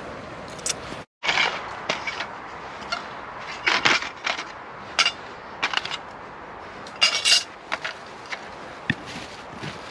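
Scattered clinks, crinkles and rustles as a small metal spirit burner and its aluminium foil base are handled on dry leaf litter, after a brief dropout about a second in.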